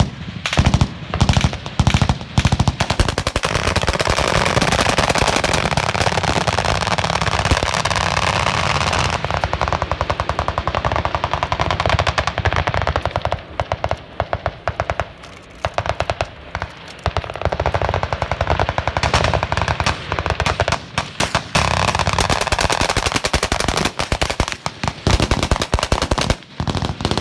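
Several machine guns firing at once in fully automatic, with short bursts, then long unbroken strings of fire, then more bursts near the end.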